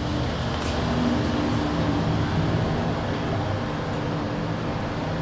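Lift car's ventilation fan running loudly: a steady whir with a low hum underneath.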